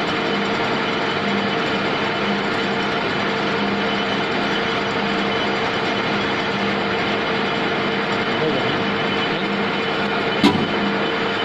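SARO lathe running steadily: an even mechanical noise with a few held tones from its drive and gearing. One sharp click comes about ten seconds in.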